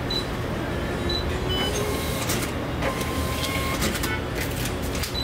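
Card terminal's receipt printer running, printing the card-payment receipt.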